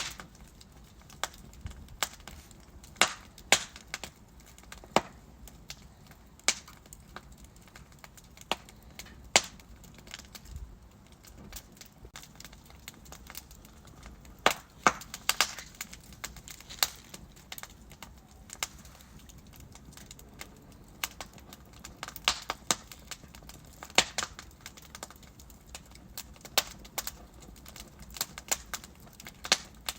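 Wood fire in a fireplace: logs burning with irregular sharp crackles and pops over a soft steady hiss.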